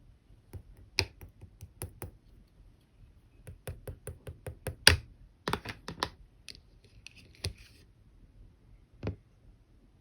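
Clear slime being pressed and squished by hand, giving irregular sharp clicks and pops, the loudest about five seconds in.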